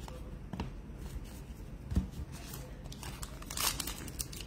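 Trading cards handled and flipped by hand, with a few soft clicks. About three seconds in, a card pack's wrapper starts to crinkle as it is torn open.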